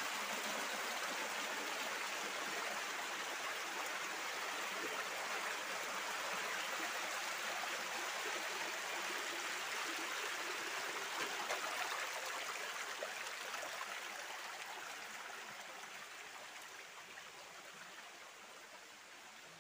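A stream cascading over rocks: a steady rush of water that fades gradually over the last several seconds.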